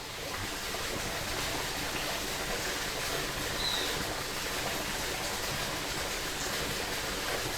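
Creek water flowing steadily over its bed, a continuous rushing. One brief high chirp sounds just before the middle.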